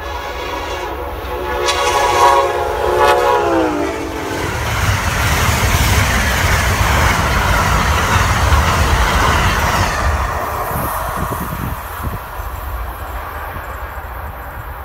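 Amtrak passenger train sounding its horn for about four seconds as it approaches at speed; the horn drops in pitch as the locomotive passes. The horn gives way to the loud rushing of the passenger cars going by on the rails, which fades as the train moves away.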